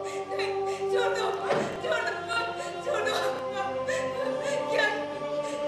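Singing with long held notes, a song in a stage play's score, and one thud about one and a half seconds in.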